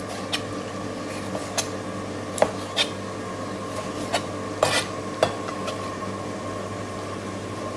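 A large chef's knife slicing squid on a plastic cutting board, the blade tapping the board in about ten irregular knocks, over a steady background hum.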